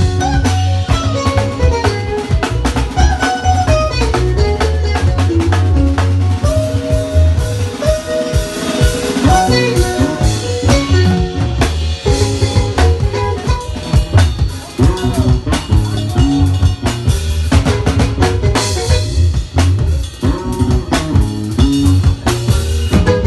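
Band music with a full drum kit, bass and guitar, played at a steady, loud level.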